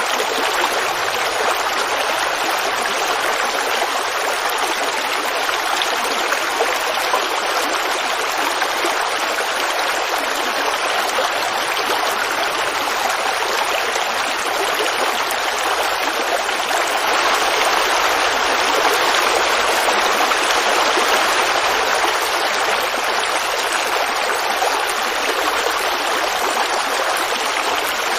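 Forest creek babbling and running steadily, swelling a little louder for a few seconds past the middle.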